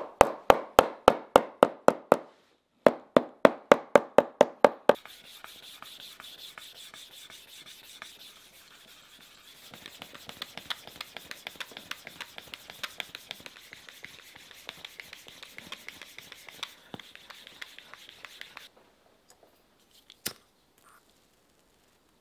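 A tool working a leather sole in quick, loud strokes, about five a second, in two runs over the first five seconds. Then a wooden stick is rubbed hard back and forth over the leather sole to burnish it, a long, fainter, scratchy rubbing that stops a few seconds before the end, followed by a single click.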